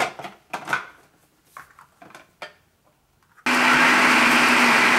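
A few light knocks as the food processor's lid and bowl are handled, then the food processor's motor starts abruptly about three and a half seconds in. It runs loud and steady with a low hum, blending a thick dip of spinach, vegetables, sour cream and crushed chips.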